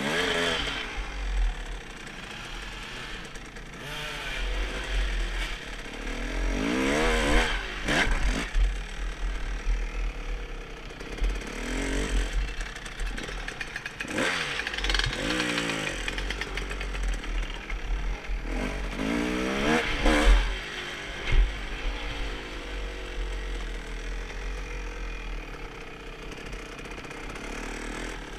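Motocross bike engine revving up and easing off again and again as the bike is ridden along a trail, with a few sharp knocks and wind rumbling on the microphone.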